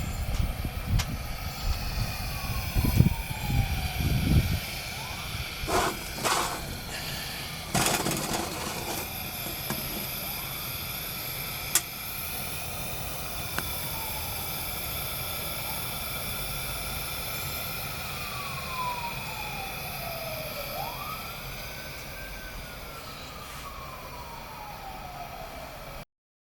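1947 Coleman Col-Max pressure lantern burning with a steady hiss. A siren wails in the background, its pitch falling and rising several times. A few low thumps and sharp knocks come in the first several seconds.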